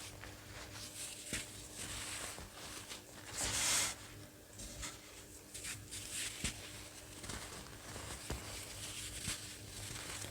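Crunchy baked baking soda being crushed: soft, powdery crunches and crackles, with one louder, longer crunch about three and a half seconds in.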